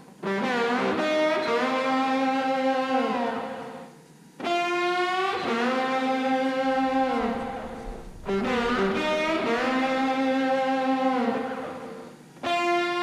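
Background music: distorted electric guitar playing long, bending notes in phrases about four seconds long, each separated by a short break.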